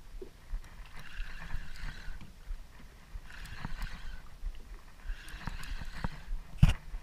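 Spinning reel cranked in bursts of about a second, roughly every two seconds, with sleeve rustle, as a hooked fish is pumped and reeled up to the boat. Low thuds run underneath, and there is one sharp knock near the end.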